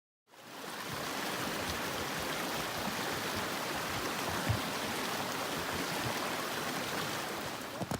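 Steady rushing of a mountain creek or waterfall, cutting in just after the start.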